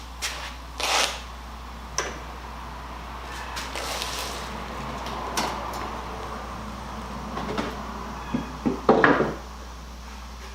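Handling noises on an old wooden carpenter's tool box: scattered knocks and taps, a scraping stretch in the middle, and a louder clatter of knocks near the end.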